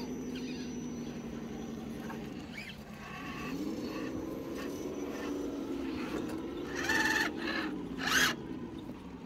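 RC crawler's electric motor and gearbox whining as it drives. The pitch drops about three seconds in, then climbs back and wavers with the throttle. Two short, loud bursts of noise come near the end.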